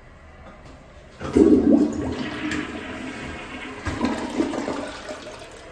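Helvex Drakar toilet flushing: a sudden loud rush of water about a second in, a second surge about four seconds in, then easing off.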